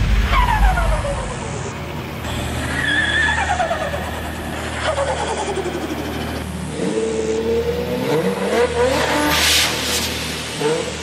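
Car sound effects in a break of an electronic drift-themed track: engine notes sweep down in pitch several times, then an engine holds a revving note, with a short tyre screech near the end.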